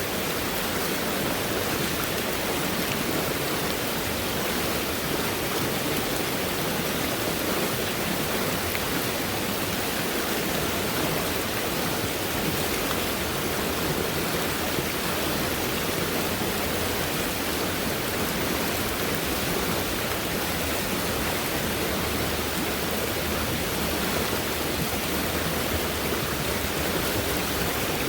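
Fast-moving stream swollen by heavy rainfall, water flowing in a steady, unbroken rush.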